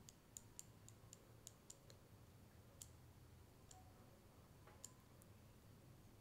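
Near silence with about a dozen faint, irregular little clicks as matte lipstick is worked onto the lips with a lip brush.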